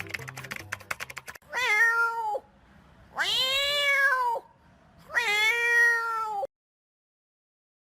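A rapid run of clicks, then a domestic cat meowing three times, each meow about a second long, the middle one rising and then falling in pitch.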